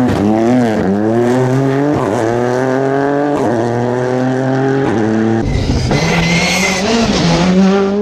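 Ford Fiesta rally car's turbocharged EcoBoost engine pulling hard under full throttle, its pitch climbing through each gear and dropping at three quick upshifts. About five seconds in the sound cuts to another rally engine revving on a gravel stage.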